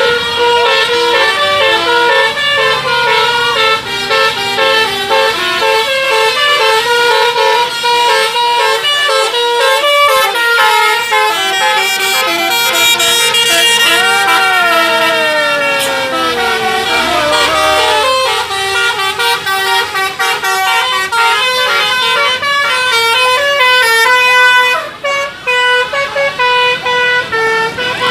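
Telolet musical horns on a bus and a truck playing tunes back and forth in quick stepped notes. A falling, sliding tone comes about halfway through, and the notes turn short and choppy near the end.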